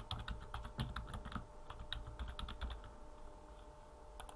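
Typing on a computer keyboard: a quick run of key presses that stops about two-thirds of the way through, followed by two quick clicks near the end.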